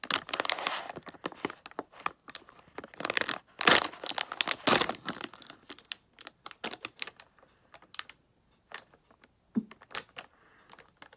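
Clear plastic cookie wrapper crinkling and crackling as it is handled and pulled at. The crackle comes in dense bursts in the first second and again from about three to five seconds in, the loudest part, then thins to scattered crackles.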